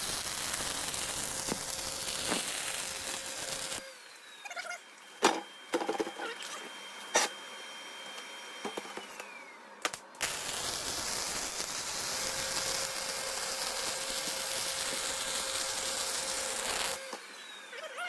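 Arc welding on the steel A-frame: two runs of steady buzzing crackle, one about four seconds long and one about seven, with a few clicks and knocks of handling in between.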